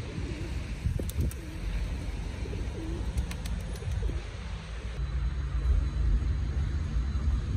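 A bird's low, repeated calls, several short ones in the first four seconds, over a steady low rumble. A steady low hum begins about five seconds in.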